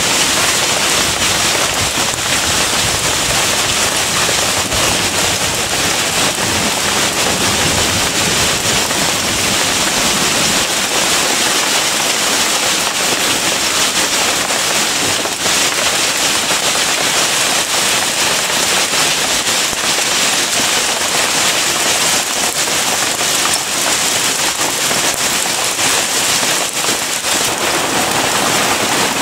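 Heavy shower of small hail mixed with rain, a dense, steady hiss made of countless tiny pellet impacts on leaves and ground.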